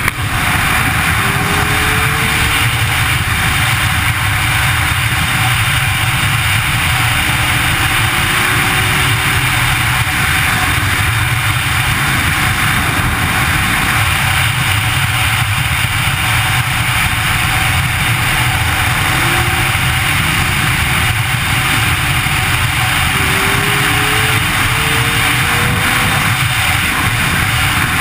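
Kawasaki Concours 14's inline-four engine running at road speed, under a steady rush of wind over the bike-mounted microphone. A few faint, short rising tones come and go.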